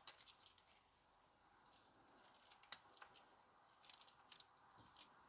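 Faint clicks and small handling noises of a wristwatch's steel bracelet being handled, with one sharper click about two and a half seconds in.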